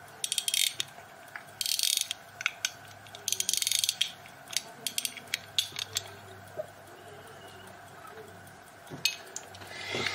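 Thomas Russell & Son Premier pocket watch's Swiss movement being wound at the crown: the click rattling over the ratchet wheel in three quick bursts, then single clicks. A soft knock and rustle of handling near the end.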